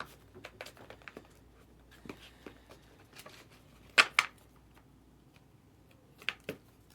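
Trading cards being handled and flipped through: light sliding and clicking, with two sharper snaps about four seconds in and two more near the end.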